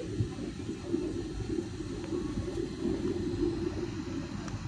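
Airliner cabin noise in flight: a steady, low rumble of the engines and rushing air, heard from inside the cabin.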